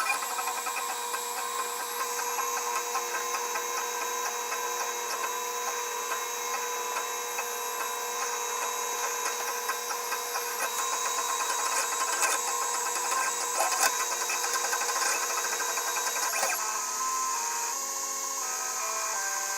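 3D printer's stepper motors whining while printing, a set of steady tones with a few light ticks. Near the end the tones step quickly up and down in pitch as the print head changes speed and direction.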